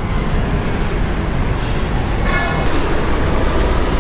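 Steady street traffic noise with a heavy low rumble, and a brief pitched sound a little past halfway.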